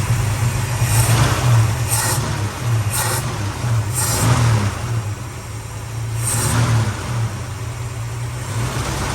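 Valiant VH Charger engine running at a steady idle, with several short surges in revs during the first half and one more a little after the middle. It is warming up after being restarted following about a month unused.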